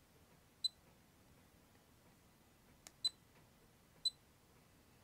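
Handheld light-intensity meter beeping as its buttons are pressed: three short, high-pitched beeps, the second coming just after a faint button click.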